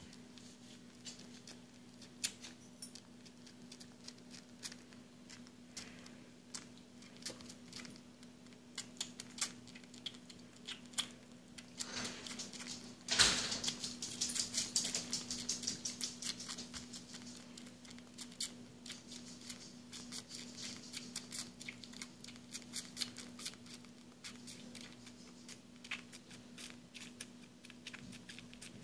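Baby gray squirrel suckling from a feeding nipple: many small wet clicks and smacks at an uneven pace. A louder rustle comes about halfway through, followed by a spell of quicker clicking.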